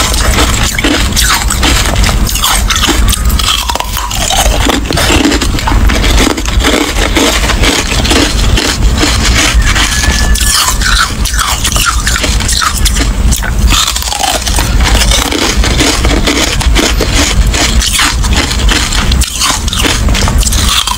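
Close-miked crunching and crackling of frosty carbonated ice sticks being bitten and chewed: a dense, unbroken run of sharp cracks and crunches.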